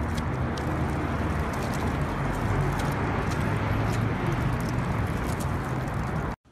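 Steady outdoor background rumble with scattered light clicks of a golden retriever puppy's paws stepping on loose gravel; it cuts off abruptly near the end.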